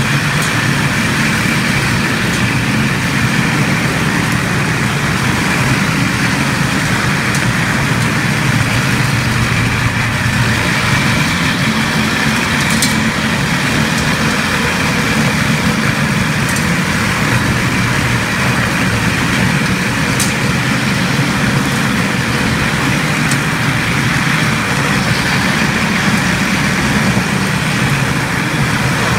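Contec Omega 450 single-disc floor grinder running steadily as it grinds carpet glue and filler off a mastic-asphalt floor, with a few faint ticks.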